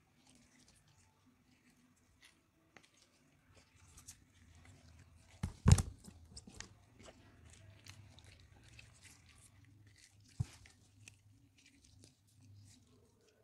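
Soaked, softened bars of soap squeezed and kneaded in gloved hands over a basin of water: small wet crackles and squishing, with the loudest crunch about five and a half seconds in and another sharp one near ten and a half seconds.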